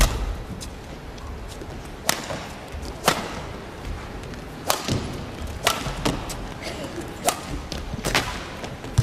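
Badminton rackets striking a shuttlecock in a rally: sharp smacks back and forth, about eight hits at uneven spacing of roughly one a second.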